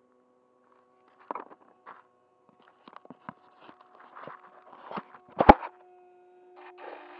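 A run of small clicks and knocks, with one loud sharp knock about five and a half seconds in, over faint steady tones. Near the end a low, even buzzing noise starts up.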